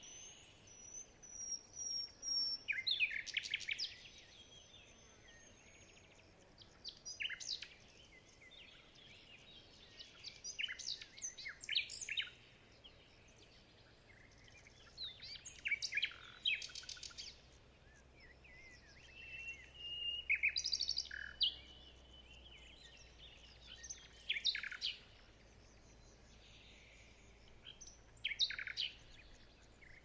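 Songbirds singing: short chirping phrases every few seconds, with a few thin drawn-out whistles between them.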